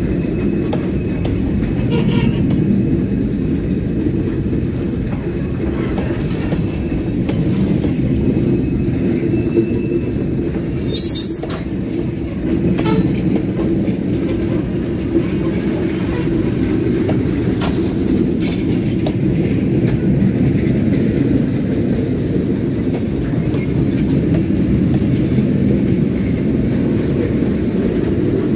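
Freight train of gondola cars rolling past, a steady low rumble of steel wheels on rail, with a brief high screech and a few clanks about eleven seconds in.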